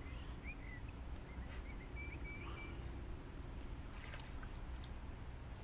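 Quiet outdoor background: a steady low rumble, with a few short high chirps from a small bird in the first three seconds.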